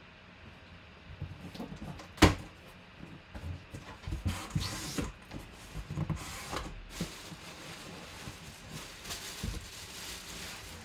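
Cardboard box being handled close up: scraping and rustling of cardboard with scattered knocks, one sharp knock a little over two seconds in the loudest.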